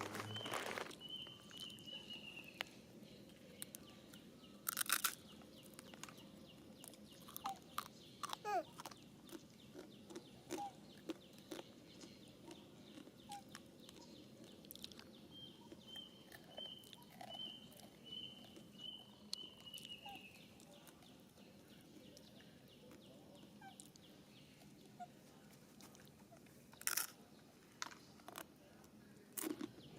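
A bird calling outdoors in a run of quick high notes that dip in pitch at the end, twice, with scattered small clicks and crunches and a couple of sharp knocks.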